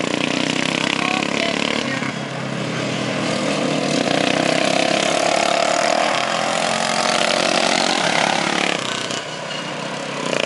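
Engines of racing lawn mowers running hard around a dirt oval, the engine note rising and falling as they lap. The sound grows louder through the middle and drops back about a second before the end.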